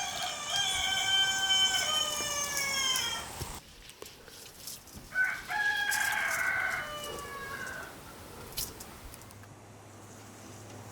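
A rooster crowing twice, each crow a long call of about three seconds that drops in pitch at its end; the second crow is softer.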